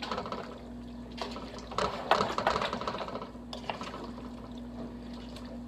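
Spoon stirring a thick, saucy ground turkey and vegetable goulash in a nonstick pot: wet squelching with irregular clicks and scrapes of the spoon against the pot, in clusters about a second in, around two seconds in and at three and a half seconds. A steady low hum runs underneath.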